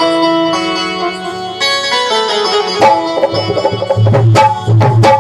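Indian instrumental music: held melodic notes, joined about three seconds in by a drum rhythm with deep bass strokes.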